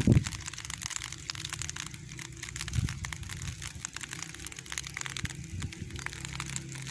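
Light rain pattering: a dense, steady crackle of many small drops.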